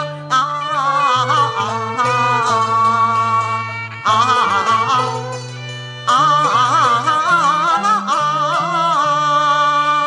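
Cantonese opera (yuequ) duet music: a high, wavering melody with heavy vibrato and slides over steady sustained low accompaniment notes, in long phrases that start afresh about four and six seconds in.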